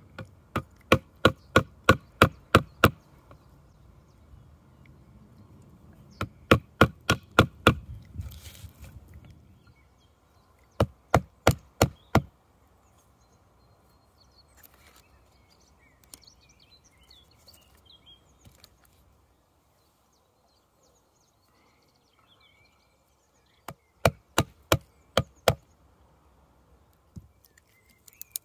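Hand axe chopping into a yew branch: quick runs of sharp wooden strikes, about four a second, broken by short pauses. The last run comes near the end.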